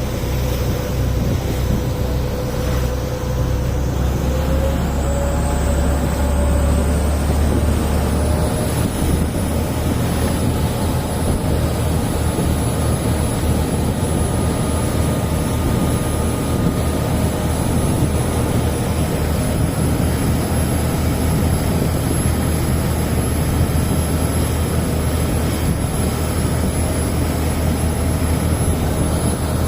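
A vehicle engine running steadily under loud, even noise, with a whine that rises in pitch a few seconds in and then holds.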